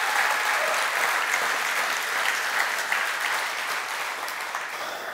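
Congregation applauding, dying away near the end.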